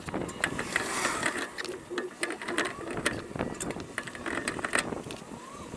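Hand ratchet wrench clicking in quick, irregular runs as the lug nuts are run onto a remounted car wheel.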